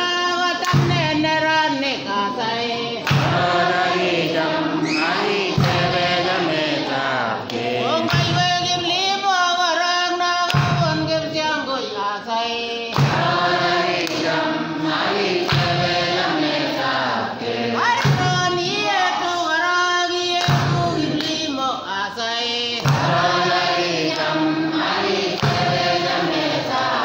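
A congregation singing a church song together in chorus, many voices at once, loud and unbroken.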